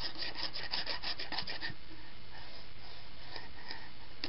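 Fingerboard scraping back and forth along a metal grind rail: a quick run of short scrapes for the first second and a half or so, then fainter scattered scrapes.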